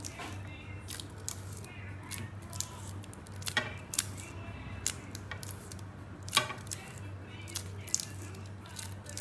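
Double-sided sticky tape being wrapped and squeezed by hand onto a wire lampshade ring: irregular crinkles and sharp clicks from the tape and its paper backing, with a few louder snaps.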